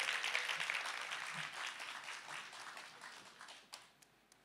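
Congregation applauding, loudest at first and dying away over about three seconds.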